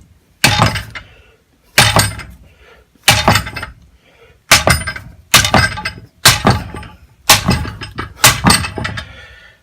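Thor No. 3 hammer striking a lathe's steel start/stop lever about nine times, roughly a second apart, each sharp blow ringing briefly. The lever is being knocked over to bend it clear of the chip tray.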